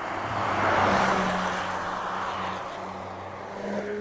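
2018 Audi RS 4 Avant's twin-turbo V6 driving past at a steady engine note, with tyre noise. It swells to its loudest about a second in, then fades as the car moves away.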